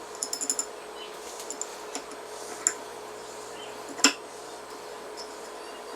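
Small metal hardware clinking and tapping as it is handled: a quick run of clicks just after the start, a few scattered light taps, and one sharper clack about four seconds in, over a faint steady hum.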